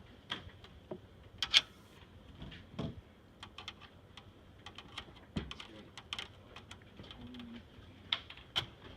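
Phillips screwdriver working the screws out of a computer case fan: irregular small clicks and short scrapes of metal on metal.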